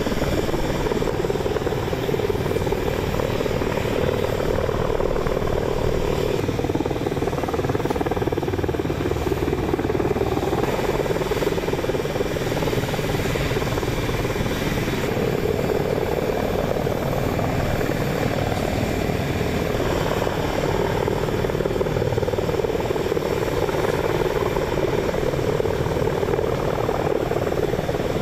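AH-64 Apache attack helicopters in flight: continuous rotor and engine noise that swells and eases a few times.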